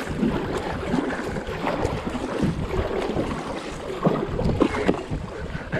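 Double-bladed kayak paddle dipping and pulling through river water in repeated strokes, with wind rumbling on the microphone.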